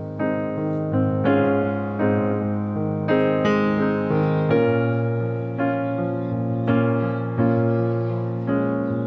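Background music: a gentle piano piece with notes and chords struck about once a second, each dying away before the next.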